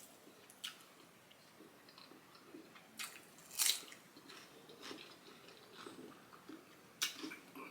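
A person chewing food close to the microphone, soft wet mouth sounds broken by a few short crisp clicks and crunches, the loudest about three and a half seconds in.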